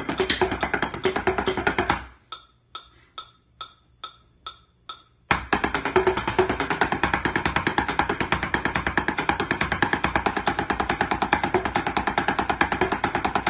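Instrumental beat at 140 bpm. About two seconds in, the full mix drops out, leaving a single sharp percussion click on each beat for about three seconds. The full beat then comes back in abruptly and runs on.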